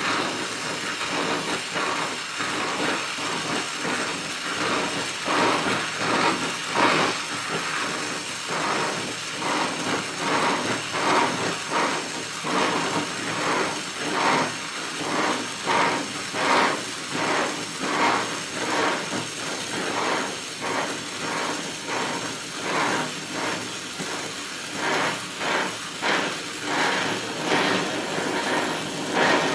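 Electric welding arc hissing and crackling steadily, swelling and fading roughly once or twice a second.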